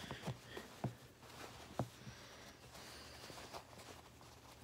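Faint handling noise from hands working a piece of fabric: a few light taps in the first couple of seconds, then soft rustling over a steady low hum.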